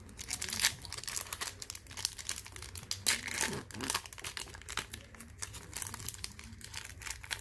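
Wrapper of a 2016 Topps Holiday baseball card pack crinkling with many quick crackles as it is handled and pulled at by hand; the pack is stubborn to open.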